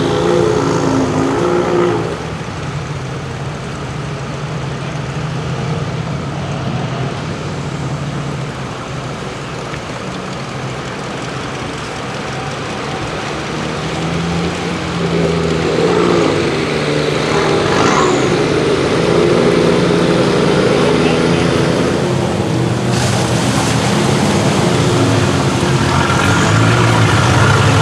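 Off-road vehicle engine revving hard in a mud bog, the revs rising and falling, louder in the second half.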